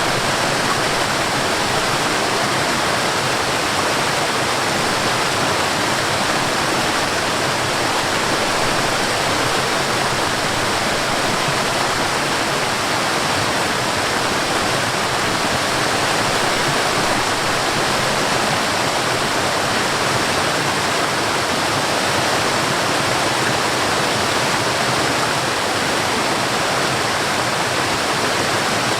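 Water flowing over a small waterfall and along a stream: a steady, even rush of water that keeps up without change.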